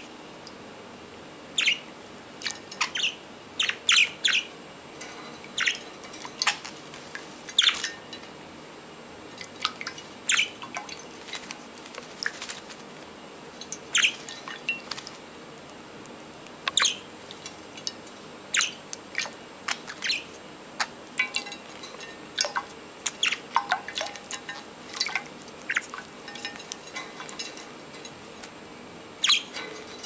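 Budgerigars chirping in short, scattered calls, several every few seconds.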